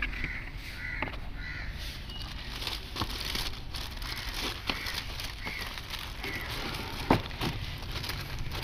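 Clear plastic wrapping around a new laptop crinkling and crackling as it is handled and pulled back, with a few sharp crackles. Bird calls sound in the background.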